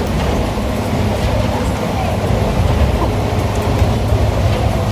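Water taxi's engine running steadily under way: a loud, even low drone heard from inside the boat's cabin.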